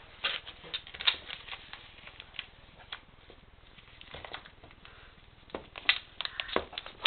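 Basset hound chewing and tearing at a wrapped gift bone: irregular crackling snaps of paper and gnawing, busiest in the first second and again near the end.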